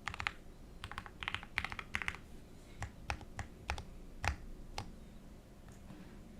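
Typing on a Neo Ergo mechanical keyboard with Everglide Aquaking V3 switches on a carbon fibre plate, a fairly quiet, near-silent-switch sound. Quick runs of keystrokes slow to single presses about three seconds in and stop about five seconds in.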